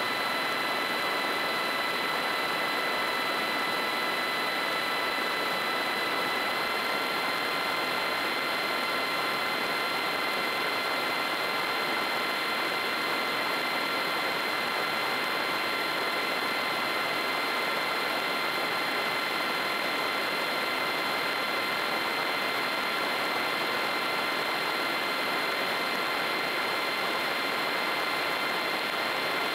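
Rotax 912UL four-cylinder four-stroke aero engine and propeller of a Kolb Mark III ultralight in steady cruise, a constant drone over a rush of air noise. The engine note steps up slightly in pitch about six seconds in.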